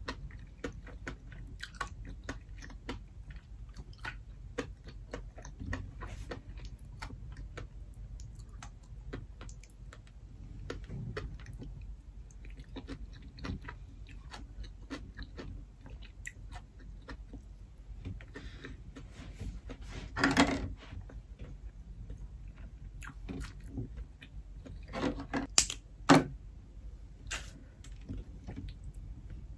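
Close-miked mouth sounds of a person chewing lobster and rice: a steady run of small wet clicks and smacks. A few louder crackling noises come about two-thirds of the way in and again near the end.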